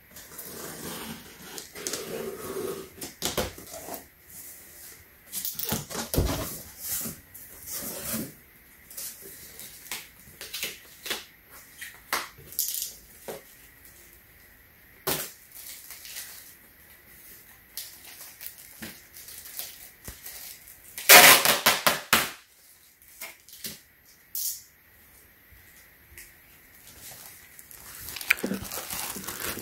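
Large cardboard box being unpacked: cardboard flaps and foam packing rustling, scraping and knocking at irregular intervals, with a louder scrape of about a second roughly two-thirds of the way through.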